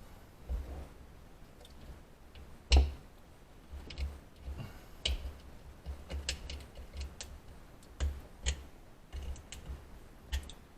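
Irregular sharp clicks and taps of small metal hand tools, with dull handling bumps beneath them; the loudest click comes about three seconds in.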